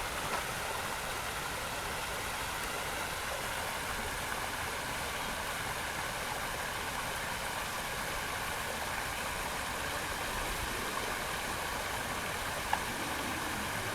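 Water running over a small waterfall, a steady even rushing.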